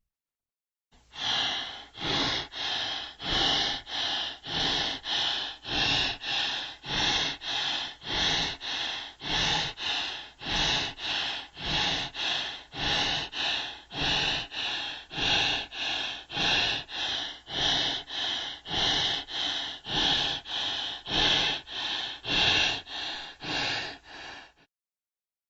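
Rhythmic, harsh gasping breaths repeated evenly about one and a half times a second, about thirty in a row, stopping abruptly shortly before the end.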